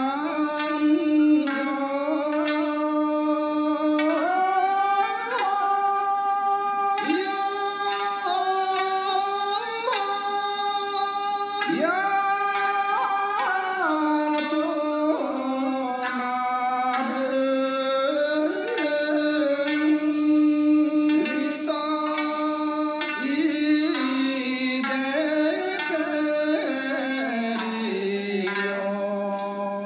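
Yaeyama classical folk song (a yunta with tōsui) sung by a group of men in unison, accompanied by sanshin and a transverse bamboo flute. The voices hold long notes and slide between pitches, singing refrain syllables such as "yau-hō hyō-hō".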